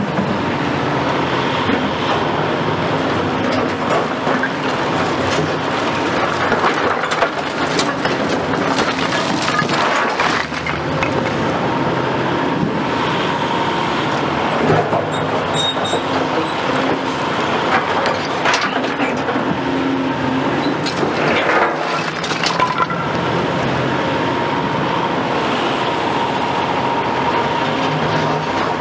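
Caterpillar 352F XE excavator's Cat C13 diesel engine running steadily under load as the hydraulics work the boom, while its bucket scrapes and scoops broken concrete rubble, with scattered clattering knocks of concrete chunks.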